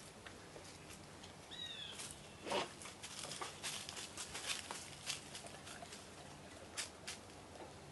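Scattered light clicks and taps of hands working at the top of a small portable generator, the sharpest about two and a half seconds in. One short bird call comes about a second and a half in.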